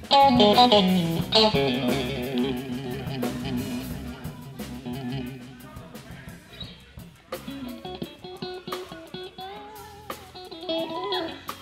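Blues trio playing live: an electric guitar lead with bent, wavering notes over bass guitar and drums, loudest at the start.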